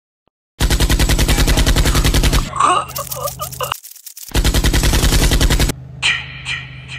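Two long bursts of automatic gunfire, rapid evenly spaced shots, with a short break between them. Near the end a low steady hum with short sharp sounds repeating about twice a second.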